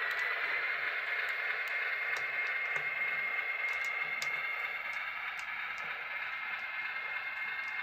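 Model diesel switcher's motor and gears running with a steady high whine and a rushing noise as it pulls a caboose away, with scattered light ticks of wheels over the track, slowly growing fainter.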